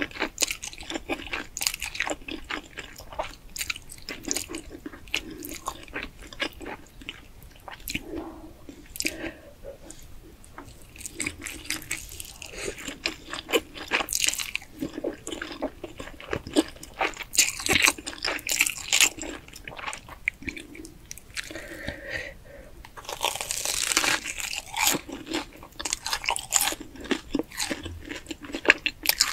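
Close-miked eating: slurping and chewing spicy instant noodles, the mouth sounds coming as quick wet clicks and smacks. About three-quarters of the way in there is a longer crunching stretch as the fried crust of a cheese-filled Korean corn dog is bitten and chewed.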